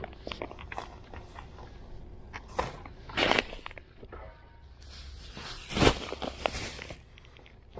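Brown paper bag of green coffee beans being handled and crinkled close to the microphone, with scattered clicks and knocks, a louder crinkle about three seconds in and a longer rustle with a sharp knock around six seconds in.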